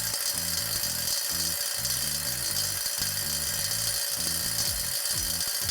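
Old-model Kobalt 24V brushless cordless impact driver hammering continuously on a nut torqued to 375 foot-pounds, trying to break it loose. Background music plays underneath.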